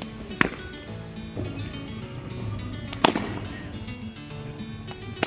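Three sharp knocks of a wet tennis ball striking the bat and the concrete pitch during cricket net practice, the middle one about three seconds in the loudest, over background music.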